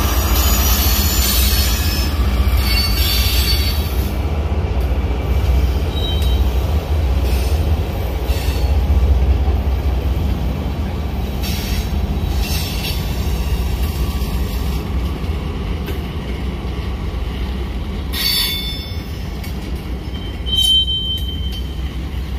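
Union Pacific manifest freight train's tank cars and covered hoppers rolling past, with a steady low rumble of steel wheels on rail. Short high-pitched wheel squeals come and go several times, the clearest near the end.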